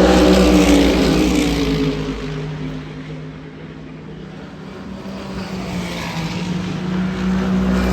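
Race cars going past on the circuit. One car's engine is loudest at the start and drops in pitch as it passes, then fades. Another car's engine grows louder toward the end.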